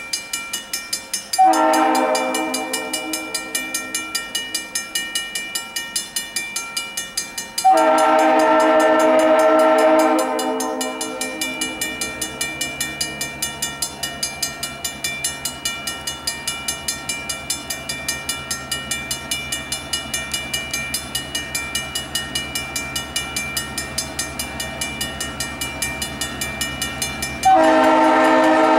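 Grade-crossing bell ringing steadily while an approaching diesel freight locomotive sounds its multi-note horn: a short blast about a second and a half in, a long blast around eight seconds, and another long blast starting near the end. The locomotive's engine rumble comes up from about twelve seconds in as the train draws closer.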